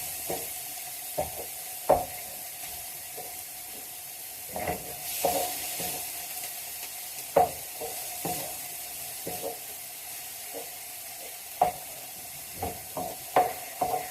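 Lean minced beef sizzling in a frying pan with a steady hiss while a utensil stirs it, knocking and scraping against the pan at irregular moments.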